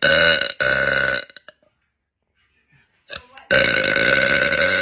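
A woman burping loudly: two short burps back to back, then after a pause of about two seconds one long drawn-out burp near the end.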